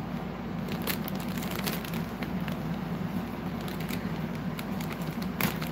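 Sealed plastic filter packaging crinkling and crackling in scattered short clicks as it is cut and worked open, over a steady low hum.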